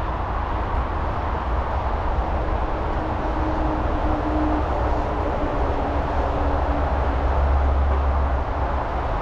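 Riding noise from a bicycle ride: a steady low rush of wind on the microphone over the hiss of tyres rolling along a path. A faint steady hum joins in for a few seconds in the middle.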